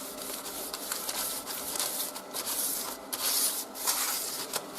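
Crumpled, damp newspaper with wood ash rubbed back and forth over the glass door of a wood stove: a scratchy rubbing in strokes with short breaks, loudest a little past the middle. The ash works as a mild abrasive, scrubbing black soot off the glass.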